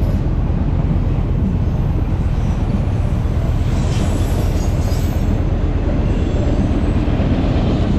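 Freight train of autorack cars rolling past at a level crossing: a steady, loud rumble of wheels on the rails, with a faint high squeal of the wheels about four seconds in.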